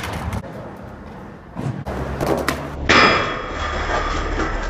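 A few scattered knocks, then about three seconds in a skateboard deck slams onto a metal stair handrail and slides down it in a boardslide. The slide is a grinding scrape with a metallic ring.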